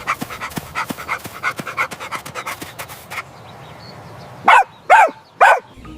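Dog panting quickly and rhythmically, about five breaths a second, for around three seconds, then three short barks about half a second apart near the end.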